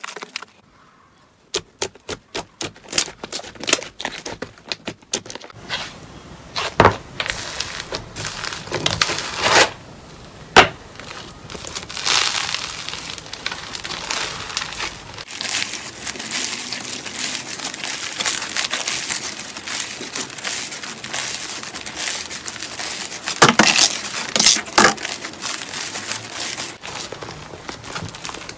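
Slime being played with, giving crisp crackles and pops: a run of separate sharp clicks in the first few seconds, then denser crackling with occasional louder snaps.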